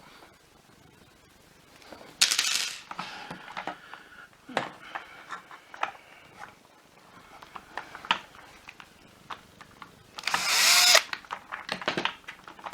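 A power screwdriver run in two short bursts, about two seconds in and again near the end, with clicks and knocks of plastic parts being handled between them.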